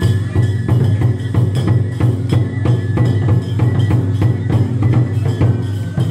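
Festival drumming on taiko drums, a steady beat of about three strikes a second, with a thin high held tone above it.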